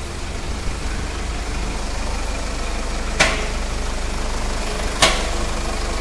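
Toyota Fortuner SUV idling with a steady low engine hum while it is moved forward and back. Two sharp clunks from the front suspension come about three and five seconds in: a knock that sounds as if something is breaking, still there after a full suspension overhaul.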